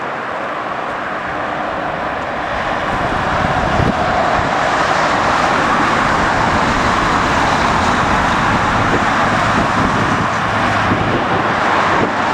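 Jet engine noise from a Boeing 747 jumbo jet taking off, with its four engines at takeoff power. The noise grows louder about three to four seconds in and then holds steady.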